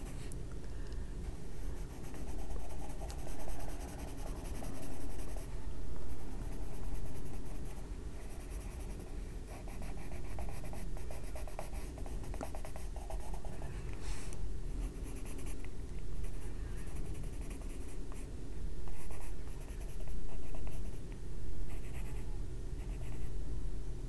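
Albrecht Dürer watercolour pencil scratching across paper in quick shading strokes, swelling and fading in runs about a second long, with one sharp tap about halfway through.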